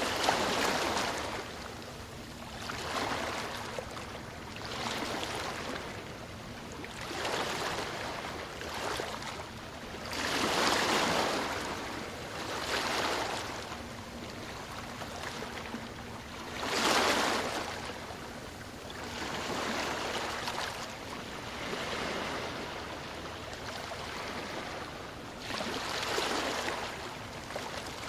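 Ocean waves breaking on a shore, a rush of surf swelling and fading every two to three seconds.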